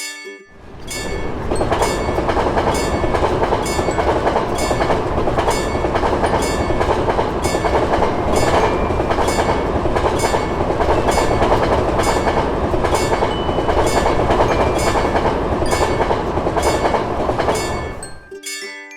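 A train passing through a level crossing: a loud, steady rushing rumble that builds up over the first second or two, holds, and falls away shortly before the end.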